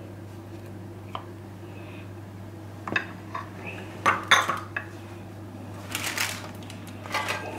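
Kitchenware being handled: a few sharp clinks and knocks of dishes and utensils, clustered about three to five seconds in, then a brief rustle near the end, over a low steady hum.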